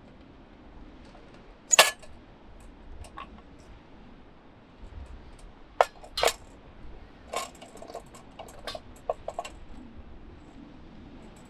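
Cookware and utensils clinking and knocking in short, sharp strikes: one about two seconds in, then a group of clinks between about six and nine and a half seconds.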